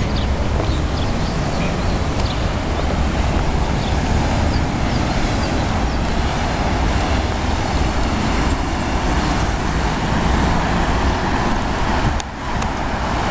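Steady road traffic noise, a continuous hiss and rumble of cars passing on a road.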